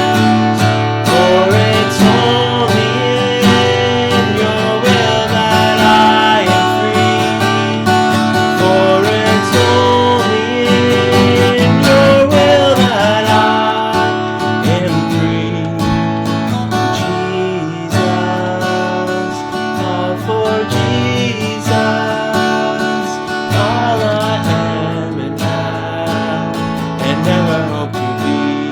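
Music: a melody line that bends and wavers over held chords.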